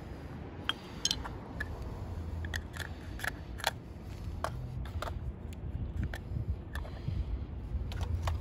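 Small sharp plastic clicks and taps of a camera lens change: lens caps twisted off and on, lenses set down on a stone tabletop, and a lens fitted to the camera body.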